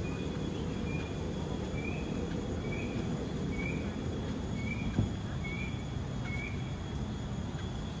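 A bird repeating one short chirp about once a second, each note a little lower than the last, over a steady low background rumble. A single thump about five seconds in.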